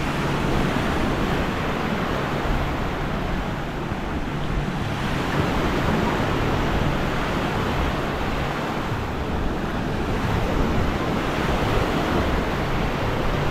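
Gentle surf washing onto a sandy beach, with wind on the microphone making a steady, unbroken noise. A low hum comes and goes underneath.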